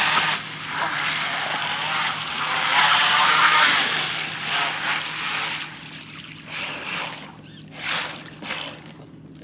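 3D-printed RC jetboat's brushless outrunner motor and jet drive running at speed, a whine under the hiss of water spray. It eases off about four seconds in, with a few short surges of throttle before it dies away near the end.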